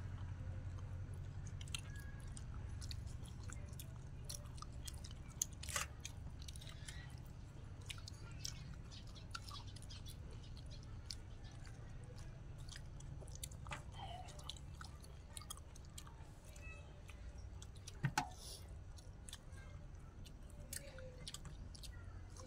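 Several people eating close to the microphone: chewing, biting and crunching vegetables and grilled chicken, with many small scattered clicks and a couple of sharper clicks about five and a half and eighteen seconds in, over a steady low rumble.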